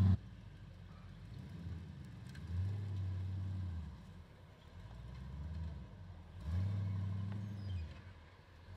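Built off-road truck's engine revving up and easing off repeatedly as it climbs a steep muddy hill under load, with two longer revs a few seconds apart.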